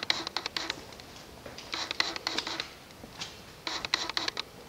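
Slow footsteps scuffing and crunching on a gritty concrete floor: three bursts of sharp clicks, about one every two seconds, with a small hard-walled room echo.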